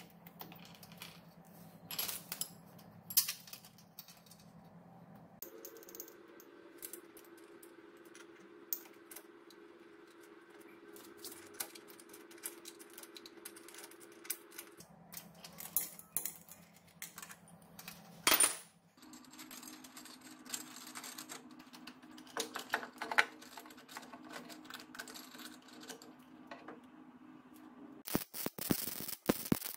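Metal parts and hand tools clinking and knocking during assembly work, over a faint steady hum. A fast run of clicks comes near the end.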